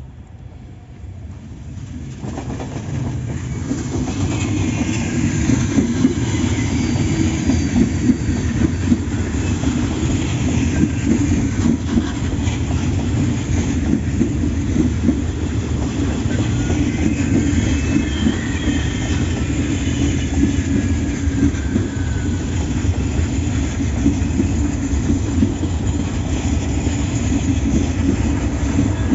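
A train running past on the rails. The sound builds over the first few seconds, then stays loud and steady, with faint high wheel squeals now and then.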